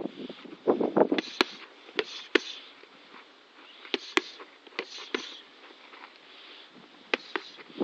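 Boxing gloves smacking into focus mitts in scattered combinations, sharp slaps often coming in quick pairs, with short quiet gaps between combinations.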